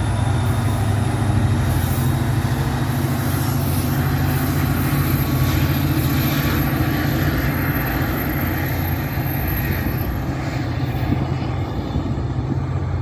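Heavy vehicle running close by, a steady low rumble with a faint whine that rises slowly and drops away about ten seconds in.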